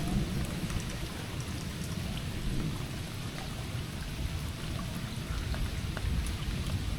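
Heavy rain falling steadily, with a continuous low rumble under the hiss and scattered sharp drop ticks.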